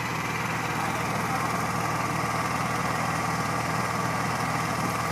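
Honda portable inverter generator running steadily, a constant engine hum.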